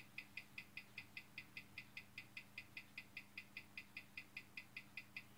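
Hamilton 756 watch movement ticking evenly, about five ticks a second, after a replacement balance has been fitted. By the timing reading the watch is running about five minutes a day fast.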